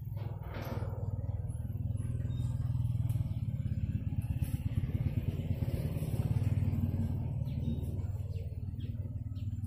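A small engine running steadily with a fast pulsing beat. It starts just after the opening, grows louder toward the middle and eases off slightly near the end.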